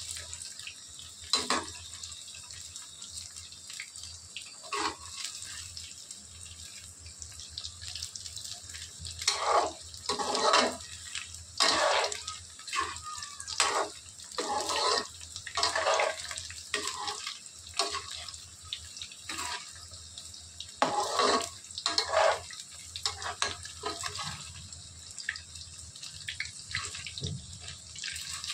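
Marinated chicken pieces deep-frying in hot oil in a metal kadhai, a steady sizzle. A perforated slotted spoon stirs and turns the pieces, scraping and clinking against the pan several times through the middle of the stretch.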